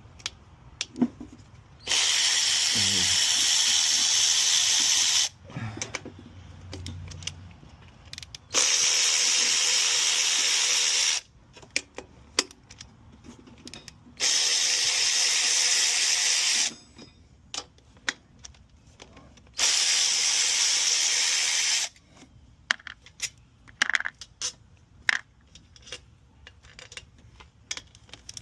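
A pneumatic air ratchet is run four times in bursts of about three seconds, hissing, as it loosens the 10 mm bolts on the upper intake plenum of a VQ35DE engine. Between the runs there are small clicks and knocks of metal tools and bolts.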